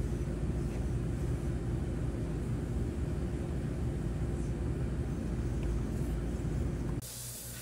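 Steady low machine rumble with a faint constant hum, cutting off abruptly about seven seconds in.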